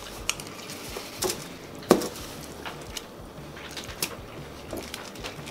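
Eating at a table: a fork clicking against the foil-wrapped burrito and chewing, a few short clicks with the sharpest about two seconds in.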